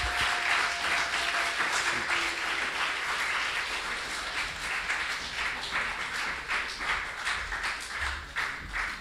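A small audience applauding, dense steady clapping that gradually thins out toward the end.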